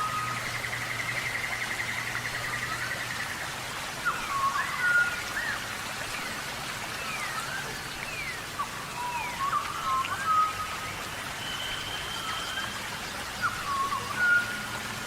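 Birds singing: repeated whistled phrases of sliding notes, with a fast trill in the first few seconds, over a steady hiss like rain or running water.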